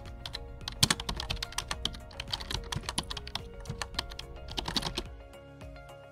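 Rapid, irregular typing clicks over background music; the clicking stops about five seconds in and the music carries on.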